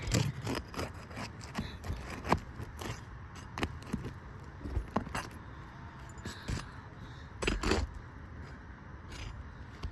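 Irregular clicks, scrapes and light knocks of a metal roof snake and hand tools working asphalt shingles and their nails loose, with a louder cluster of knocks about seven and a half seconds in.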